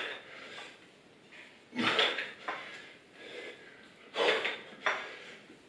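A person doing dumbbell thrusters on a tiled floor: a short burst of noise with each squat-and-press rep, about every two seconds, each followed by a weaker one.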